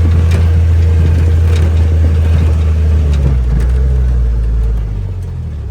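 Motor vehicle running, a steady low drone that eases off about five seconds in.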